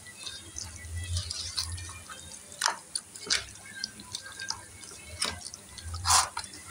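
Hands squeezing and kneading beef pieces in a wet curd-and-spice marinade in a metal bowl: irregular wet squelches and clicks, the loudest a little after six seconds in.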